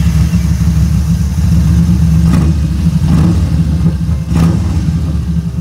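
2015 Yamaha Bolt's 942 cc air-cooled V-twin idling steadily in neutral, freshly started.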